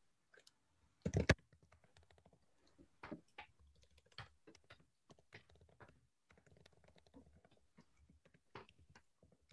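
Faint typing on a computer keyboard: irregular runs of keystroke clicks as a sentence is typed, with one louder thump about a second in.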